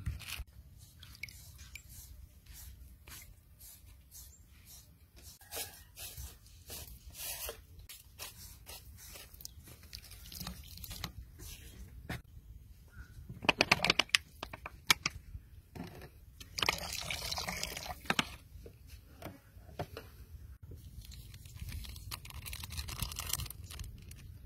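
Plastic seasoning sachets being handled, squeezed and emptied into a metal pot of broth: scattered crinkles, clicks and drips, a dense run of crackling about halfway through, and a longer rustle a few seconds after it.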